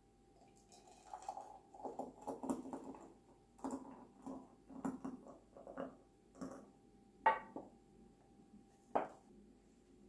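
Thick hot chocolate pouring from a saucepan into a ceramic mug, with irregular soft glugs and plops. Two sharp clinks follow near the end.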